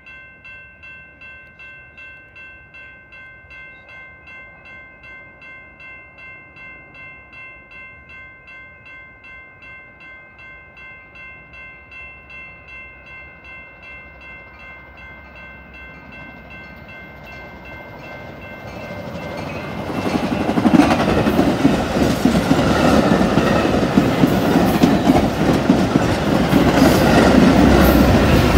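A level-crossing warning bell dings about twice a second while a Metra express commuter train approaches without stopping. From about two-thirds of the way in, the train passes at speed. Its loud wheel and rail rumble, with rapid clickety-clack from the bi-level cars, drowns out the bell.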